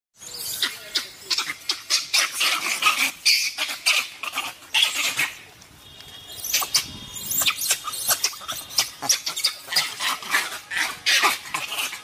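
Gray langurs fighting: a rapid run of short, harsh cries from several monkeys, easing off briefly about halfway through before picking up again.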